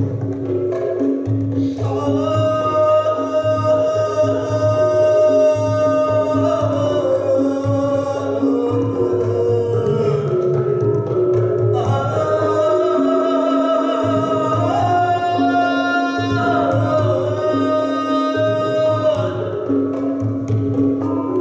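Gamelan ensemble playing: a repeating low pulse under a long held melody that slides in pitch. The upper line drops away briefly about ten seconds in, then resumes.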